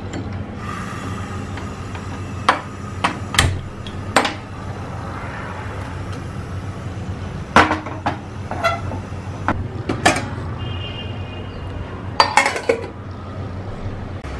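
Steel cookware on a gas stove clinking and knocking: about a dozen separate sharp metal knocks spread through, several close together near the end as a steel plate is set on the pot as a lid, over a steady low hum.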